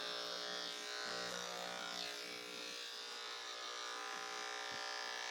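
Electric dog-grooming clippers running with a steady buzzing hum.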